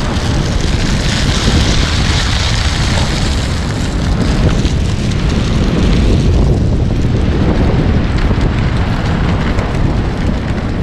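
Heavy wind buffeting the camera microphone over the steady rumble of an Acton Blink S-R electric skateboard's wheels rolling on asphalt.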